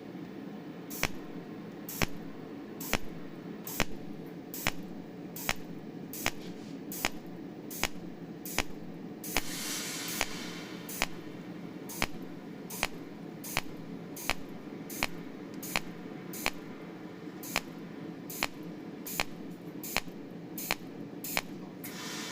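Cold welding machine firing its welding pulses: a sharp click a little over once a second over a steady hum, with a hiss lasting about a second and a half near the middle.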